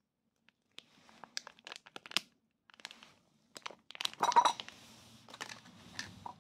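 Plastic snack pouch crinkling and crackling in bursts as it is squeezed to push out a sauce-coated spicy duck wing, loudest about four seconds in as the wing slides out onto the plate.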